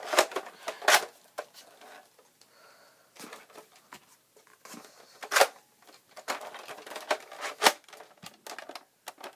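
Scattered sharp plastic clicks and knocks with light rustling, from a Nerf blaster being handled and loaded. The sharpest clicks come just after the start, about a second in, around five seconds in and near eight seconds.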